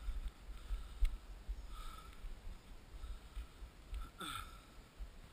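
Uneven low rumble of wind and movement on a head-mounted action camera in a waterproof housing, with faint sharp knocks about two seconds apart from tennis ball strikes in a rally.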